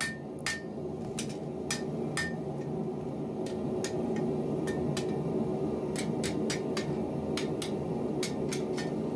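Hammer striking a low-heat steel sword guard on its tang against an anvil: about twenty light, ringing taps, a couple to three a second and quicker in the second half, over a steady low rumble. The guard is being hot-fitted so its slot sits snug on the tang with no gaps.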